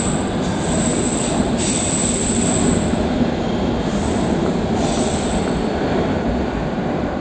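London Underground S stock train pulling out of the platform: a steady rumble of the cars, with the wheels squealing in high whines that come and go several times. The sound eases slightly as the last car enters the tunnel.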